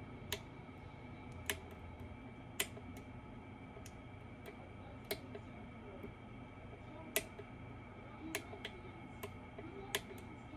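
A lock pick working the pins inside a 13-pin BKS Janus lock: small, sharp clicks, about nine of them, at irregular intervals.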